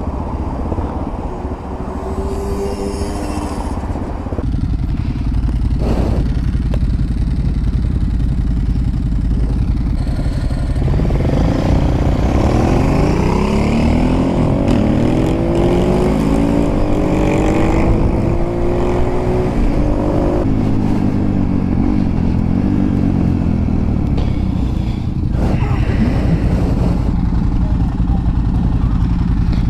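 Motorcycle engine from the rider's helmet camera: running steadily at first, then from about ten seconds in revving up and dropping back again and again as it pulls through the gears, and settling to lower, steadier running near the end. A sharp click is heard once early on and once near the end.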